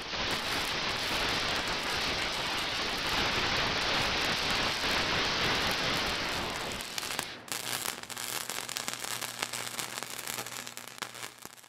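Welding arc sound effect: a steady loud hiss, changing about seven seconds in to a rapid crackle over a low electrical hum.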